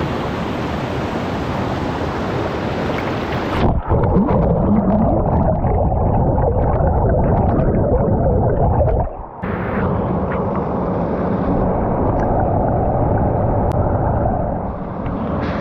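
Rushing water of a small rainforest waterfall, a loud steady roar heard close up in three separate takes, with abrupt cuts about 4 and 9 seconds in.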